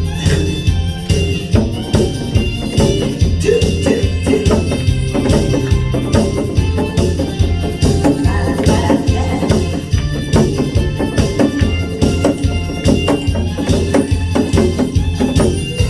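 Disco-style backing music with a steady beat and a repeating bass line: the instrumental intro of the song, with no singing yet.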